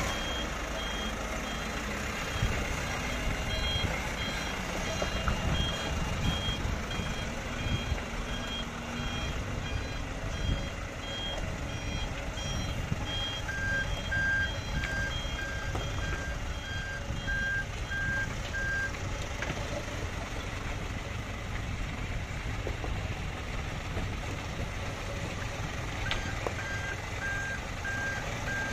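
Vehicle reversing alarms beeping steadily over the rumble of heavy diesel machinery: a hydraulic excavator and dump trucks working. A higher-pitched beeper sounds through the first two-thirds. A lower-pitched one joins about halfway, stops, and starts again near the end. A few short knocks are heard.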